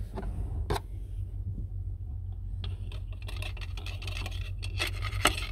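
A thin metal pick scraping and rustling inside the open drain fitting of a marine engine's exhaust manifold, with a sharp click about a second in and another near the end, over a steady low hum. The probe is a check for trapped water while winterizing, and the fitting turns out empty.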